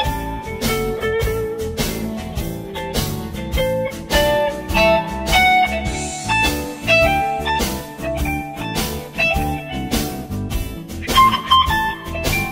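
Background music: a guitar-led blues track with a steady beat.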